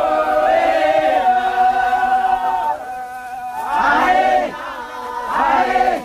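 A group of voices chanting together in long held notes. The chant drops away about three seconds in and comes back in two short swells.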